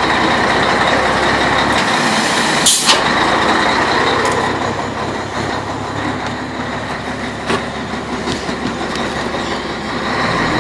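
Scania 112 truck's six-cylinder diesel running with its exhaust brake engaged, giving a loud, rough exhaust sound. There is a short sharp air hiss about three seconds in, and the sound eases somewhat over the second half.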